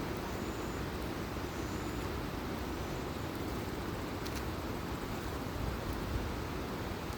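Mountain valley stream flowing loudly, a steady even rush of water.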